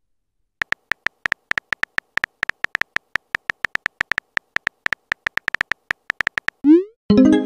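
Texting-story app's typing sound: a quick, uneven run of short, identical keypress beeps as a message is typed letter by letter. Near the end comes a short rising swoosh and a brief chime as the message is sent.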